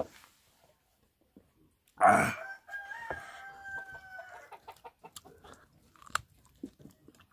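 A rooster crowing about two seconds in: one call ending in a long held note that drops slightly before it stops. Small clicks of chewing and crunching on food follow.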